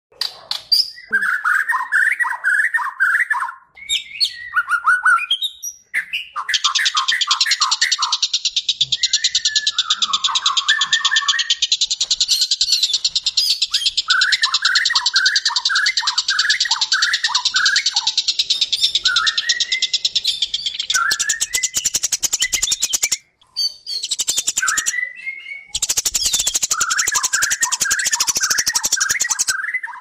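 Several songbirds singing together: bursts of quick, repeated chirping phrases, and from about six seconds in a dense, fast, high trill running above them, with two brief breaks near the end.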